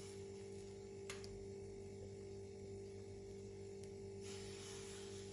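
Faint, steady electrical hum with a light hiss, and a single light click about a second in.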